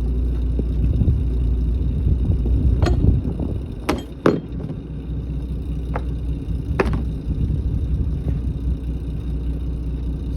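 Lobster boat's engine running with a steady low rumble that eases back about three seconds in, with five sharp knocks between about three and seven seconds in.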